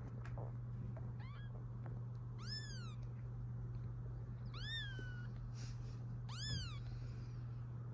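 Day-old British Longhair kittens mewing: four thin, high-pitched cries, each rising then falling in pitch. The first is faint and the last, about six and a half seconds in, is the loudest.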